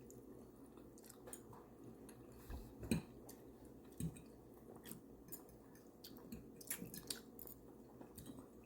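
Faint chewing and other mouth sounds of someone eating, with a few soft clicks scattered through, the clearest about three and four seconds in.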